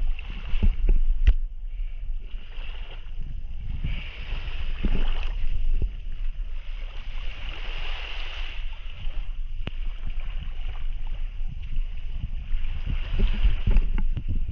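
Wind buffeting the microphone in a gusty low rumble, over the hiss of small waves washing onto a sandy shore that swells and fades several times.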